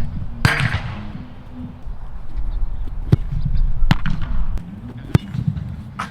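Handling of football boots and their packaging: a brief burst of rustling about half a second in, then four sharp taps or knocks spread over the next few seconds, over a low background hum.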